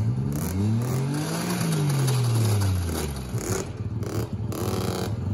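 Wildcat side-by-side UTV engine revving up for about a second and a half, then easing off, and starting to climb again at the very end.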